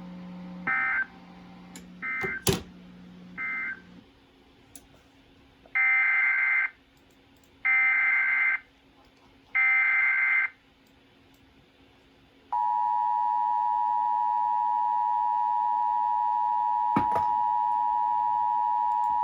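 Emergency Alert System data bursts: three short end-of-message bursts, then three longer header bursts about two seconds apart, each a rapid two-pitch digital screech. About twelve seconds in, the steady two-tone attention signal starts, signalling the start of a new alert broadcast.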